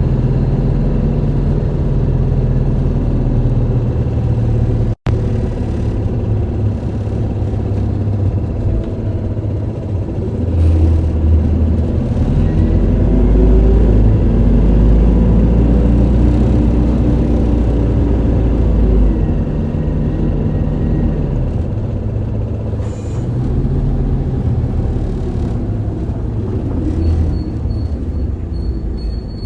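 Isuzu Erga city bus heard from inside the cabin, its diesel engine and drivetrain running under way. The low rumble swells as the bus pulls harder from about ten seconds in, then eases off. A thin high tone comes in near the end.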